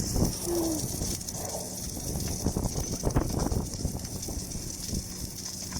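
Submerged arc welding with a Lincoln LT-7 welding tractor, set at about 400 amps and 30 volts, running along a long seam: a steady hiss and low rumble with irregular crackling from the arc under the flux.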